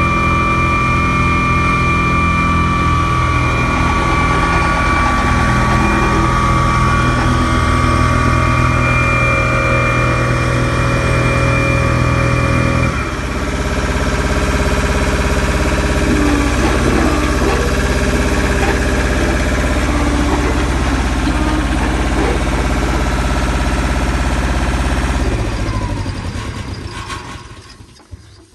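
Takeuchi TR260 tandem roller's Deutz diesel engine running steadily, with a high steady whine over it that stops about halfway, where the engine note changes. Near the end the engine winds down and stops.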